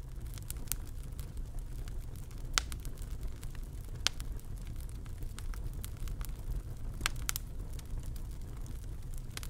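A steady low rumble with scattered sharp crackles and snaps, the loudest about a third of the way in, near halfway, and three-quarters of the way through.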